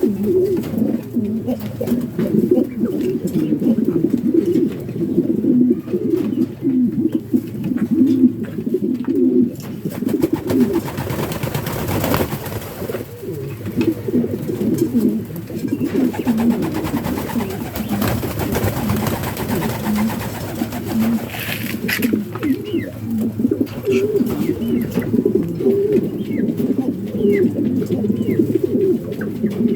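Many pigeons cooing together, a dense run of overlapping low coos. A stretch of rustling noise runs through the middle.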